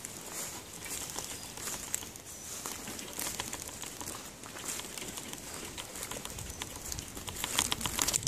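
Wild birds calling, among them a dove cooing, over light rustling.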